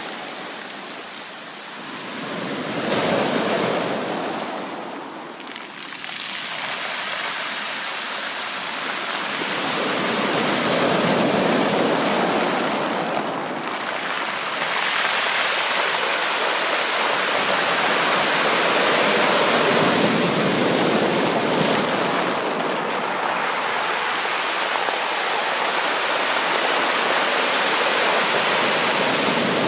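Sea waves breaking and washing up a beach, a steady rush that swells and eases with each wave every several seconds.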